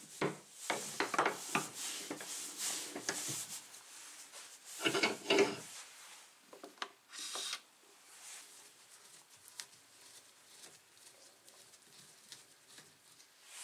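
Hand tools and the old hammer being handled at a workbench: a run of clinks and rattles, a louder clatter about five seconds in, then only light scattered taps and scrapes.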